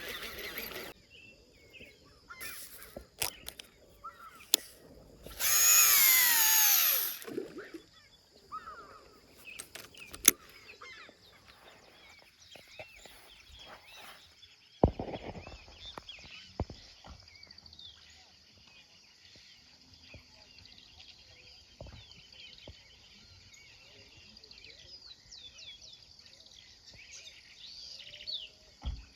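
Open-country ambience with small birds chirping and a steady high buzz of insects. About six seconds in, a loud animal call lasts about two seconds, falling steadily in pitch.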